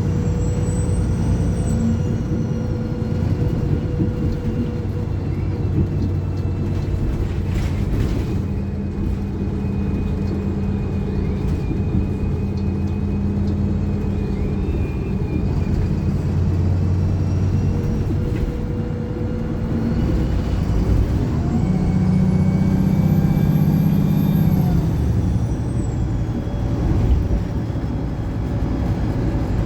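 Wright Pulsar single-deck bus on the move, its diesel engine running steadily with the transmission whining. A short burst of noise comes about eight seconds in. From about twenty seconds in the engine works harder for a few seconds, while a high whine rises and then falls away.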